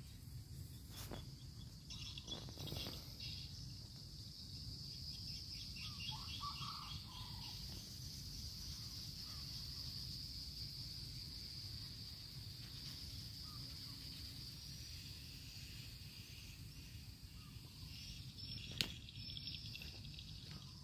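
Insects buzzing in a steady high-pitched drone over a low rumble, with a single sharp click near the end.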